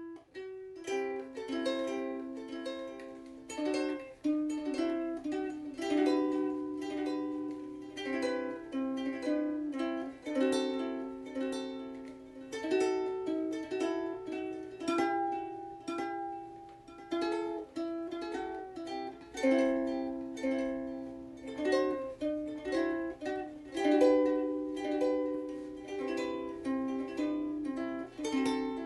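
Ukulele music: plucked notes and chords played as a continuous melody at a steady pace.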